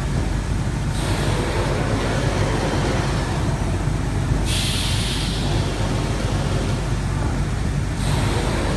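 Automatic flat-bed screen-printing machine running: a steady low hum under constant mechanical noise, with a brighter hiss that shifts about every three and a half seconds.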